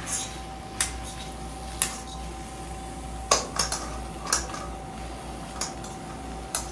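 Spatula clinking and scraping against a cooking pot while chili peppers and pork are stir-fried: about eight sharp, irregular knocks, loudest a little past three seconds in.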